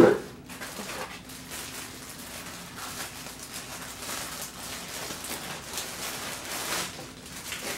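Thin plastic packaging bag crinkling and crackling continuously as it is handled and torn open around a folded T-shirt, loudest near the end.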